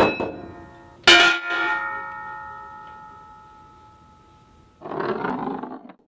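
A stainless-steel lid clangs against a metal canister twice, the second strike about a second in louder, and rings with several clear tones that die away over about three seconds. Near the end comes a short rolling noise lasting about a second.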